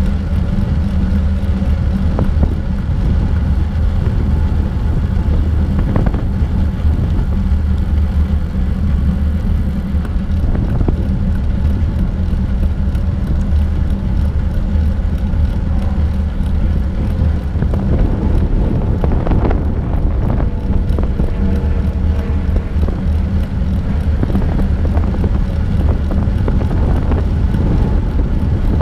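Wind rumbling over the microphone of a bicycle-mounted GoPro while riding, mixed with tyres rolling on asphalt: a loud, steady low noise with a few light knocks.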